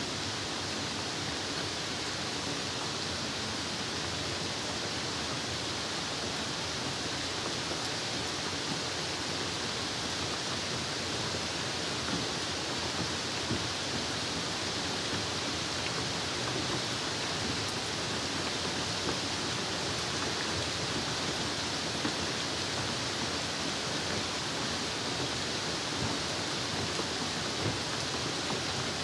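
Steady rain: an even hiss with small irregular ticks of drops, unchanging throughout.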